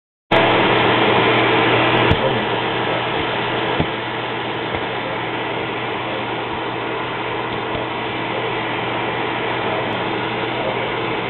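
Electrolux vacuum cleaner running steadily with a low hum, and two brief knocks about two and four seconds in.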